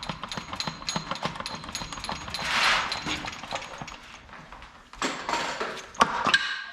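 Hand ratchet clicking rapidly and evenly, several clicks a second, with a short hiss partway through and a few sharp metal knocks near the end.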